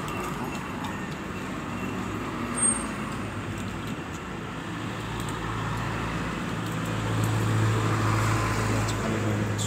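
Street traffic noise with a motor vehicle's engine hum swelling from about halfway through and loudest near the end, as a vehicle passes close. A single short, sharp high click about three seconds in.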